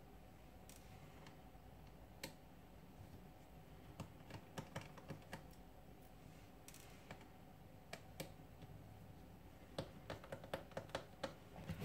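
Faint scattered clicks and ticks of a small precision screwdriver working the tiny screws on the back of an Asus Zenfone 2 ZE550ML, with a quick run of clicks about ten seconds in.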